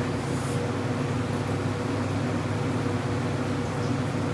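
A steady low mechanical hum made of a few fixed tones over a faint hiss.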